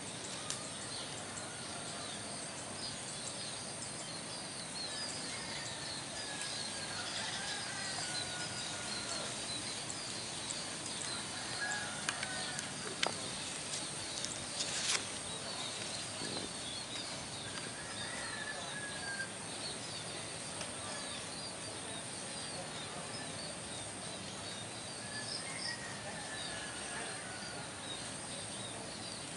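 Outdoor tropical ambience: steady insect chirping with a few falling bird whistles now and then. There are two sharp clicks near the middle.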